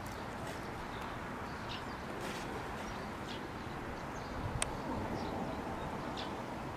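Outdoor ambience: a steady background hiss with scattered short bird chirps, and one sharp click a little over four and a half seconds in.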